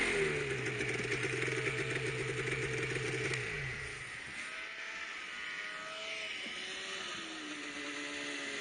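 Polaris snowmobile engine running steadily, then dropping in pitch and fading about three and a half seconds in as the sled slows. A second Polaris RMK snowmobile is then heard approaching, its engine rising and falling in pitch and getting louder near the end.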